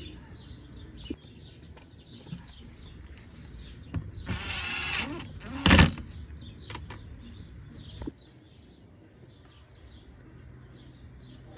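A small electric power tool's motor whirs briefly, about four seconds in, running the screw into the underbody access panel, followed by a sharp knock. Birds chirp faintly in the background.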